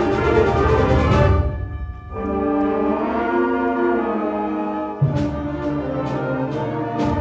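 School concert band playing: a loud full-band passage breaks off about a second and a half in, leaving a held chord in the lower instruments. About five seconds in, the full band comes back in with percussion strikes about twice a second.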